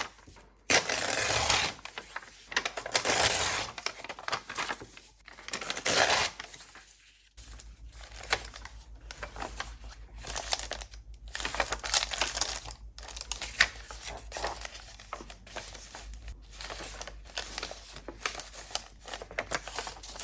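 Paper torn by hand around a sketch, three long tearing strokes in the first six seconds, followed by paper rustling and crinkling as it is handled. A faint low hum comes in about seven seconds in.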